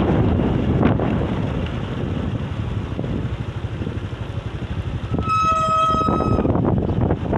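Strong wind buffeting the microphone, with surf underneath. About five seconds in, a single steady high-pitched horn-like tone sounds for just over a second, then stops.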